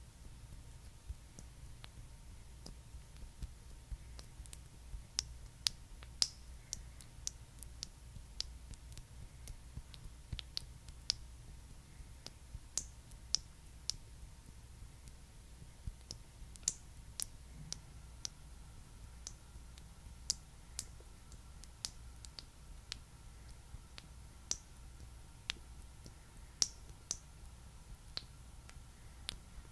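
Close-miked ASMR trigger sounds: small sharp clicks at an irregular pace, about one to three a second, some louder than others.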